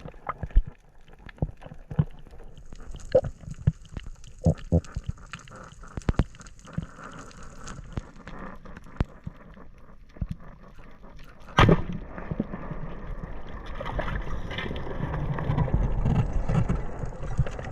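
Water noise with scattered sharp clicks and crackles. About two-thirds in there is a sudden sharp knock, then a louder rough rushing and churning of water.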